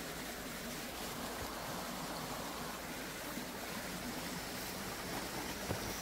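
Shallow mountain stream running over rocks: a steady, even wash of flowing water.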